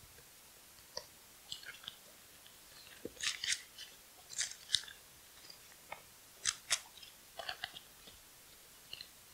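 A Bible and loose papers being handled and gathered up at the lectern: a scattered series of short, crisp rustles and light clicks, picked up close by a clip-on microphone.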